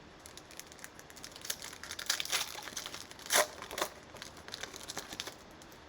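Cellophane wrapper of a trading-card cello pack crinkling and tearing as it is opened by hand: irregular crackles, with a louder crackle about three and a half seconds in.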